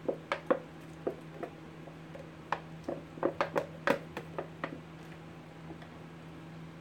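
Scattered light clicks and knocks of a plastic tub tapping against a ceramic slow-cooker crock as soft shea butter is scraped and scooped out of it with gloved hands, most of the knocks bunched in the middle.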